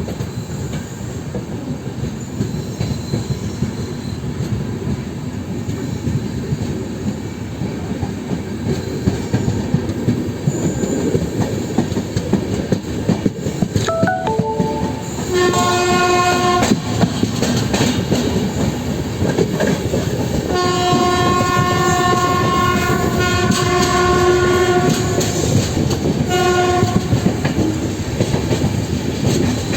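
LHB coaches' wheels rumbling and clattering over the track at speed, with the WAP7 electric locomotive's horn sounding three times about halfway through: a short blast, a long blast of several seconds, then a brief one.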